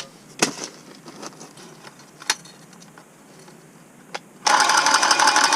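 A few sharp clicks and knocks of pipe and fittings being handled, then about four and a half seconds in a cordless power tool starts up loud with a fast, rattling buzz.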